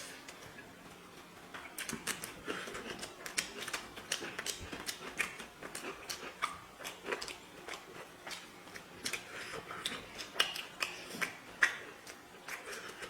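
Eating sounds from chicken biryani being eaten: irregular soft clicks and smacks of chewing and mouth sounds, several a second.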